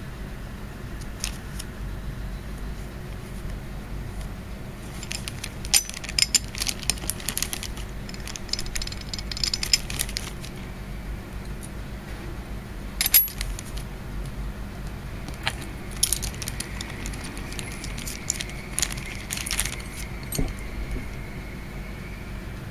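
Metal weight ring clinking and clicking against the plastic parts of a toy spinning top as it is handled and fitted on, in short flurries of light clicks with one sharper click about halfway through.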